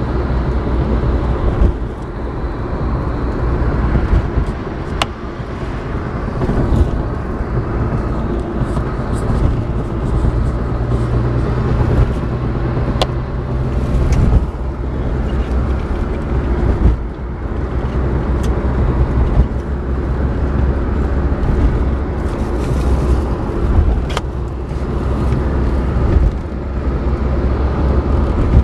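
Car driving, heard from inside the cabin: a steady low rumble of engine and road noise, with a few short clicks.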